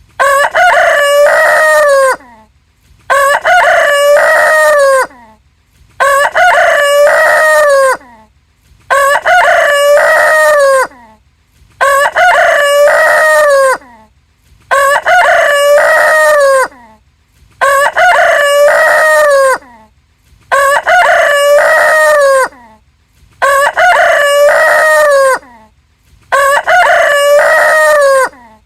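A rooster crowing the same cock-a-doodle-doo over and over, about ten times, each crow about two seconds long with a short silent gap before the next. The crows look identical in pitch and shape, like one recorded crow looped.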